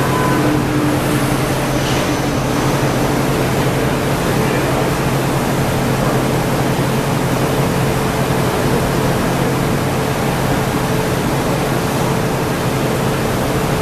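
Gas-fired glory hole (glass reheating furnace) running: a steady rushing noise of burner and combustion blower with a low hum under it.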